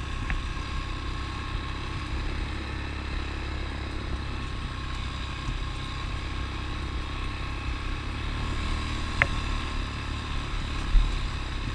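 ATV engine running steadily with a low rumble. There is a sharp click about nine seconds in and a thump near the end.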